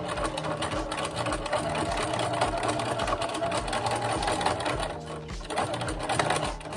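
Domestic sewing machine running in free-motion mode with the feed dogs dropped, stitching steadily through lace appliqué. It eases off briefly about five seconds in, then picks up again.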